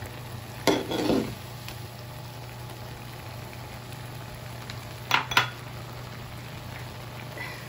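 Shrimp in garlic butter sauce sizzling steadily in a metal pan, with a clatter of cookware just under a second in and two sharp knocks a little after five seconds.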